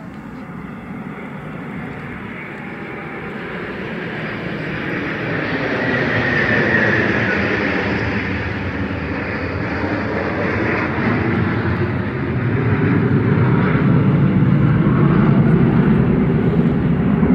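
A formation of six twin-engine Sukhoi fighter jets passing overhead, their jet engine noise swelling as they approach. A higher hiss peaks about six seconds in, then a deeper rumble grows louder from about twelve seconds in.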